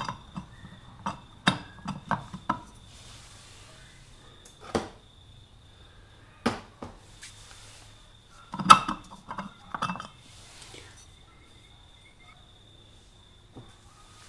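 Metal rear sprocket being set on and lifted off a motorcycle wheel hub's studs: scattered sharp metallic clinks and clanks, the loudest nearly nine seconds in.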